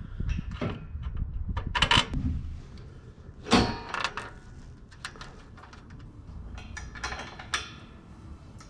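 Aftermarket metal grille knocking and clattering against the radiator support as it is pushed and lined up into place, with one loud clank about three and a half seconds in. Near the end come short clicks as a top mounting bolt is worked with a ratchet.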